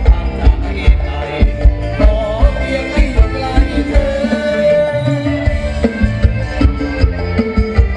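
Thai ramwong dance music from a live band played loud through a PA: singing over a steady drum and bass beat, with the bass and drums dropping out briefly about five seconds in.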